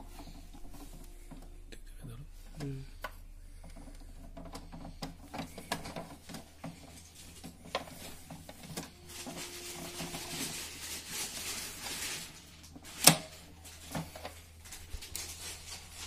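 Ink cartridges being pushed into the carriage of an HP DeskJet 2623 printer: scattered light plastic clicks and knocks with a stretch of rubbing, then one loud snap late on as a cartridge clicks into place.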